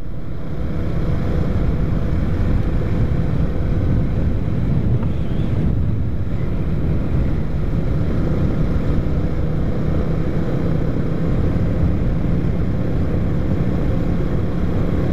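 Motorcycle engine running steadily while cruising, almost buried under heavy wind rush on the microphone.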